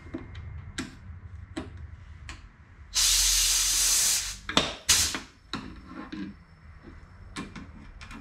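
Pneumatic rivet squeezer setting rivets in an aluminum wing spar: light clicks and taps as it is worked, then a loud hiss of compressed air lasting about a second, three seconds in, followed by two short, sharp air blasts.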